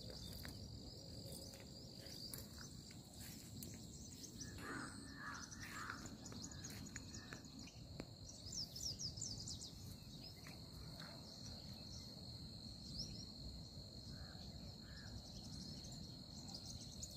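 Faint field ambience: a steady high insect drone, with a few short bird chirps, mostly about halfway through, over a low rumble.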